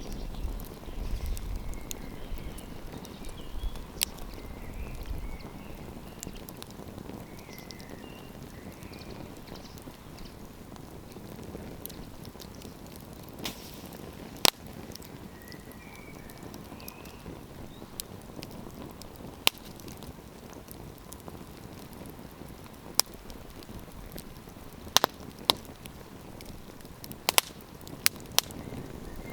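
Wood campfire crackling: a steady low hiss of burning, with scattered sharp pops and snaps, several in quick succession near the end.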